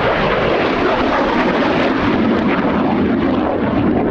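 Loud, steady jet roar of a MiG-17F's Klimov VK-1F turbojet as the fighter flies its display.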